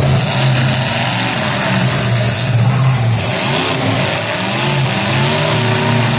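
Demolition derby car engines running and revving, their pitch rising and falling over a steady din.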